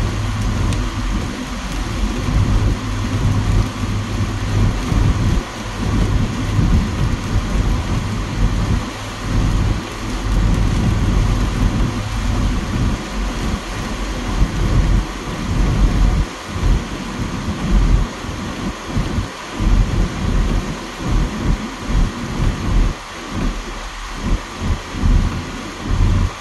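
Heavy rain beating on a car's windshield and body, heard from inside the cabin, over a steady low hum. Irregular low rumbles swell and fade every second or so.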